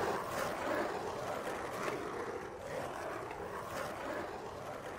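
Skateboard wheels rolling over cobblestones: a steady rolling rumble with repeated clicks as the wheels cross the gaps between the stones.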